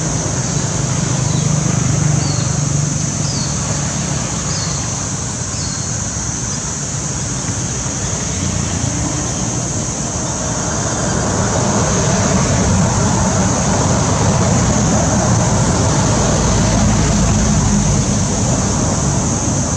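Steady outdoor background noise: a low rumble like road traffic that grows a little louder after about ten seconds, under a constant high hiss, with a few short high chirps in the first few seconds.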